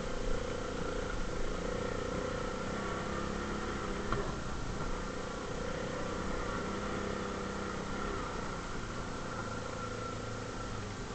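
ATV engine running steadily at an even speed.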